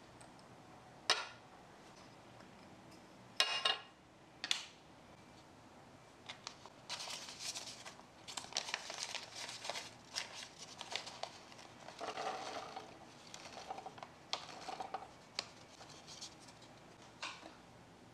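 Small brown paper bag crinkling and rustling as it is handled and tipped, with blueberries dropping into a small plastic bowl in a miniature steel sink. A few sharp clicks or taps come in the first few seconds.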